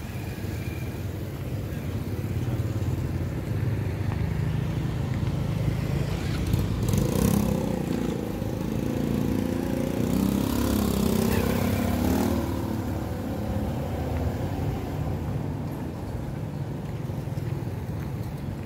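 Street traffic with motor vehicle engines running steadily. A vehicle drives past close by in the middle, louder for several seconds, its engine note bending in pitch as it goes by.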